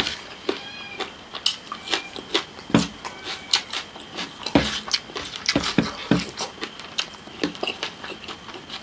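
Close-up eating mouth sounds: wet lip smacks, sucking and licking of the fingers. Irregular sharp clicks come several times a second, with a few brief squeaky smacks about a second in.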